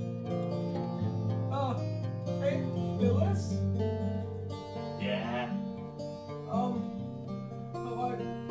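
Background music with long held notes. Short voice sounds come in over it from about a second and a half in.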